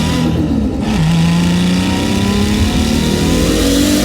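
Nissan RB26 straight-six, stroked to 2.8 litres by HKS and fed by a T04Z turbo, under hard acceleration on high boost, heard inside the car. A brief break in the sound about half a second in, then the revs climb steadily through the next gear.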